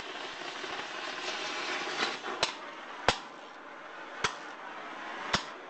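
Oxyacetylene torch flame hissing steadily as it burns into an old computer, with four or five sharp cracks in the second half.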